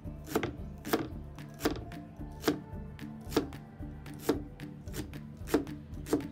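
Cleaver chopping spring onions on a plastic cutting board: sharp knocks of the blade on the board at an even pace, a little under one a second, about eight in all. Soft background music plays underneath.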